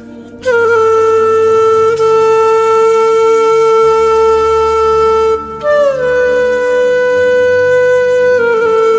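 Background music: a woodwind instrument holding long notes, one held for about five seconds, then sliding up to a higher note and back down near the end.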